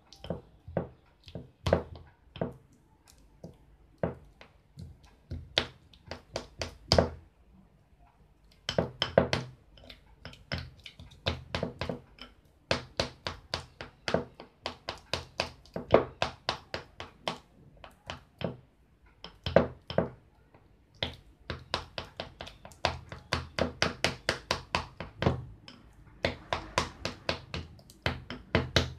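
A spoon mashing peeled bananas in a bowl, knocking and tapping against the bowl in quick runs of several strokes a second with short pauses between runs.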